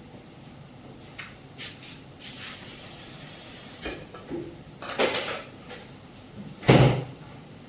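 Kitchen clatter: several knocks and clanks of things being handled, with the loudest a heavy bump near the end.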